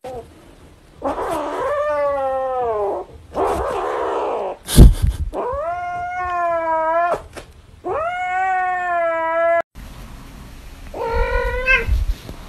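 A kitten gives three long, drawn-out yowling meows, the first falling in pitch, with a loud knock about five seconds in. Near the end another cat yowls more briefly.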